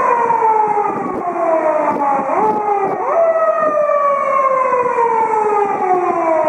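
Japanese police patrol car siren wailing on an emergency run. Its pitch falls slowly, then sweeps quickly back up twice near the middle and falls again.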